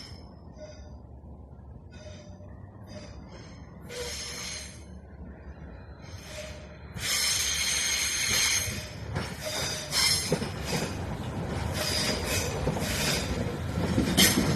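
A train passing with its wheels squealing on the rails: faint, broken squeals at first, then loud high squealing over a running rumble from about halfway through.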